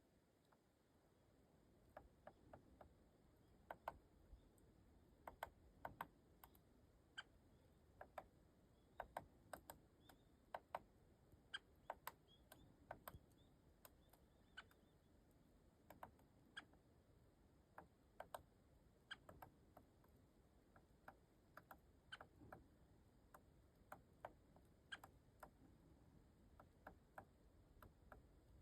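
Great spotted woodpecker giving sharp, short 'kik' calls, singly or in quick pairs, at irregular intervals.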